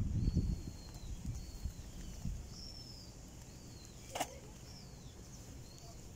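Footsteps and handling bumps on stone paving and steps, heaviest in the first half-second, with short high bird chirps repeating in the background and one sharp brief sound about four seconds in.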